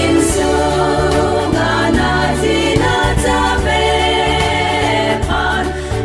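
A congregation of women singing a hymn together.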